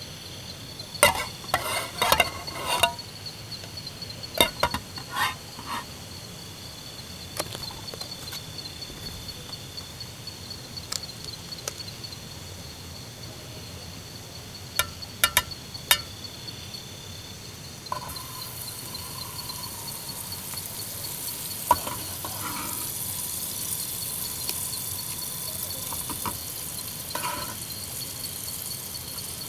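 Metal cookware clinking and knocking in short clusters, then food starts sizzling in a pan about two-thirds of the way through and keeps frying. A steady high chirring of insects runs under it all.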